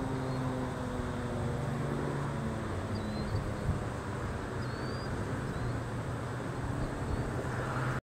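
Federal Signal 2001-SRN mechanical siren winding down after its test. Its low tones slide slowly lower in pitch and fade out over the first few seconds, leaving a faint low hum. Short high bird chirps come now and then.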